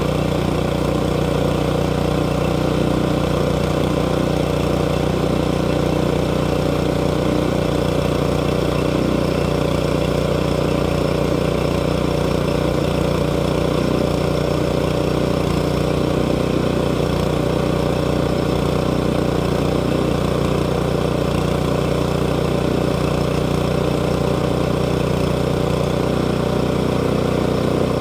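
Small gasoline engine of a portable circular-blade sawmill running steadily at a constant speed.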